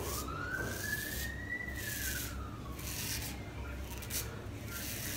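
Muhle R41 open-comb double-edge safety razor scraping lather and short stubble off a scalp, in short strokes about every half second.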